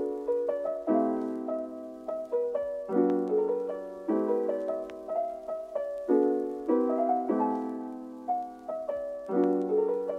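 Background piano music: slow, soft chords struck every second or two, each left to ring and fade.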